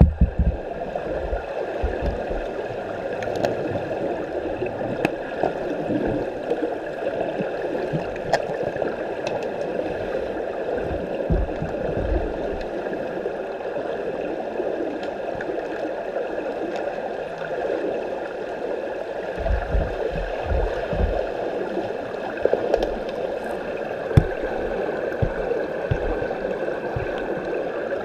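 Underwater pool sound through a submerged camera: a steady rush of water churned by swimmers' fins, with faint steady hums behind it. Scattered sharp clicks and low thumps run through it, thickening about two-thirds of the way in.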